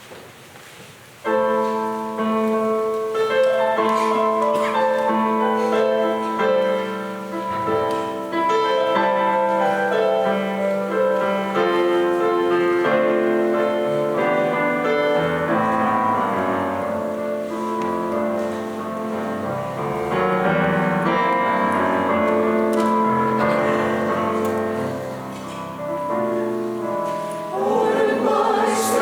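Church choir singing a hymn with keyboard accompaniment, sustained chords entering suddenly about a second in.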